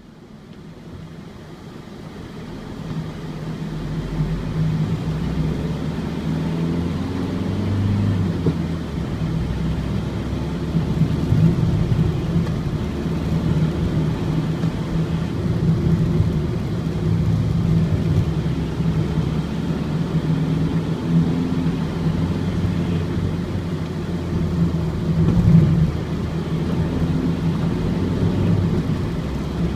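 Ford Transit's four-cylinder diesel engine and road noise while driving, heard on board. A steady low drone with small rises and falls in the engine note, fading in over the first few seconds.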